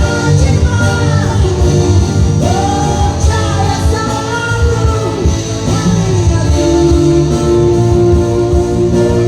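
A band playing a Malay pop song with guitar, a lead vocalist singing the melody over it, and a long held note in the last few seconds.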